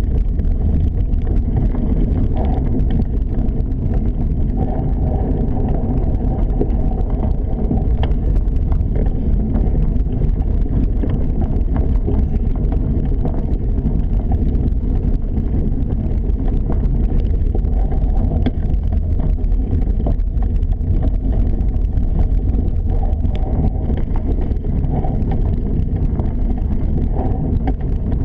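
Steady low wind rumble buffeting the microphone of a moving action camera, with a few faint ticks.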